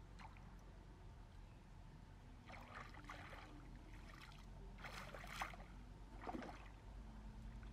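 Shallow stream water sloshing and splashing as a person's hands and feet move through it, in a few short bursts over a faint steady low hum.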